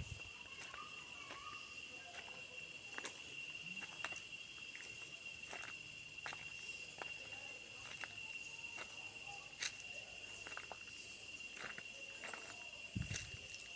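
Forest insects calling in one steady, high, unbroken drone, with a second, higher insect buzz joining from about three to six seconds in. Scattered sharp clicks and crackles sound every half second or so, and there is a low thump near the end.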